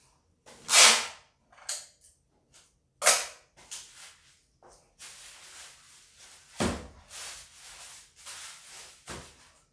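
Packing tape being pulled off its roll and wrapped around a small parcel: several short, sharp rips, the loudest about a second in and about three seconds in, with softer rustling between.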